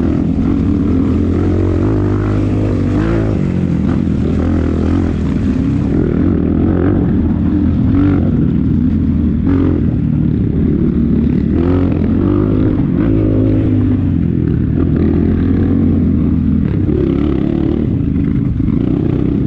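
Kayo dirt bike's engine running while riding on a rough dirt trail, heard up close from the handlebars, its revs rising and falling again and again.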